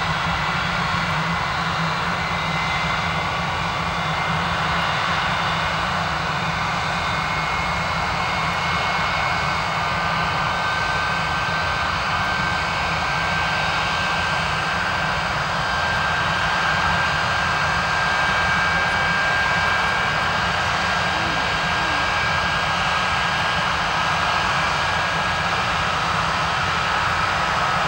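English Electric (BAC) Lightning F.6's Rolls-Royce Avon turbojet running steadily in a static ground run: a continuous jet roar with high turbine whines that drift slightly in pitch.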